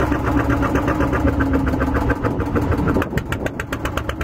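An engine running steadily at idle, with an even, rapid chugging of about ten beats a second.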